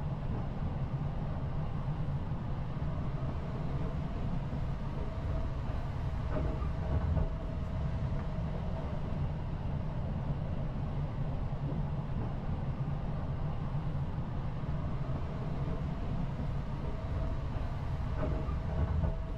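Steady low rumble inside a carriage of the Sunrise Izumo sleeper train, a JR 285 series electric multiple unit, with a faint steady whine above it.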